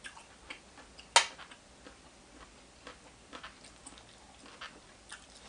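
Scattered light clicks and taps of a utensil against a dish as the food is stirred, with one sharper knock about a second in.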